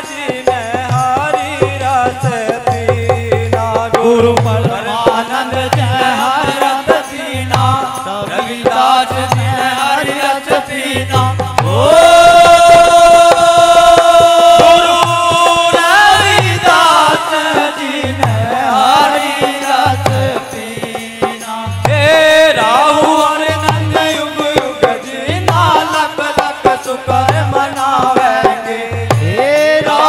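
Devotional folk singing by male voices over a steady hand-drum beat. About twelve seconds in, the singers hold one long note for about four seconds, the loudest moment, before the melody moves on.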